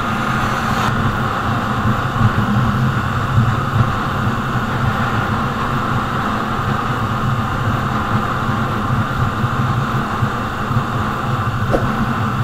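100cc single-cylinder motorcycle engine running steadily at cruising speed on the highway, with a constant rush of wind and road noise.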